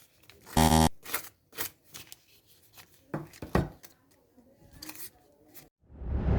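A blunt knife blade scraping and sliding across a sheet of paper in a series of short strokes without cutting it. A brief buzzing tone sounds about half a second in, and music starts near the end.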